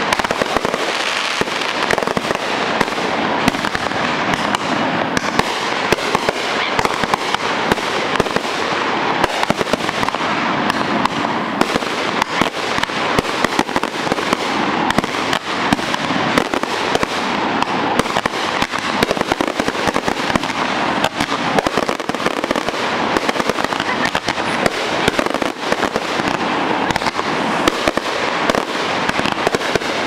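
Fireworks going off in a dense, unbroken barrage of bangs that never pauses.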